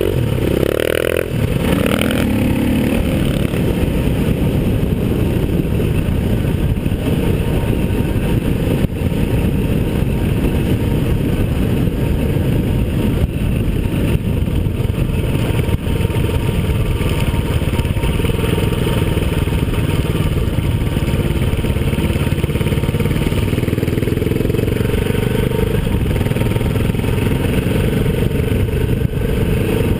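Single-cylinder four-stroke enduro motorcycle engine running steadily at speed on a dirt track, heard from a camera mounted on the bike itself.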